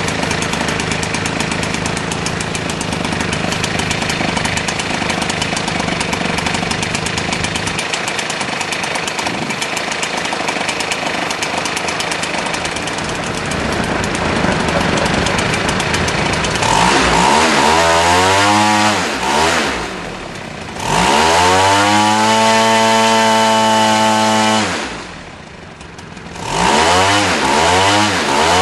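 Zenoah G62 62cc single-cylinder two-stroke gasoline model-aircraft engine turning a 23x8 propeller, on its first running-in after a hand start. It runs steadily for about sixteen seconds, then revs up and down several times, twice dropping back low before picking up again.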